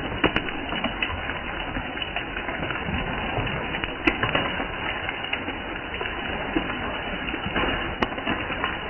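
Steady rain falling on a patio, a continuous hiss with many individual drops tapping sharply on hard surfaces close by.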